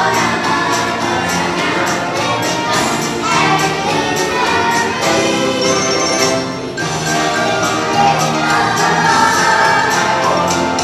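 A group of children singing a song together over instrumental accompaniment with a steady beat.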